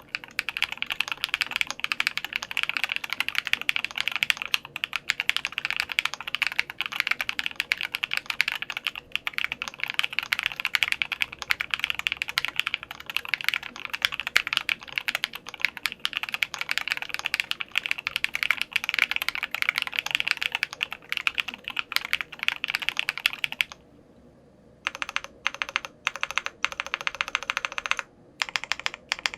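Fast, continuous typing on a custom Alice-layout mechanical keyboard with lubed SW Vintage Linear switches (65 g springs) on a polycarbonate plate, a dense stream of keystroke clacks. About 24 seconds in the typing stops briefly, then resumes in shorter, sparser bursts.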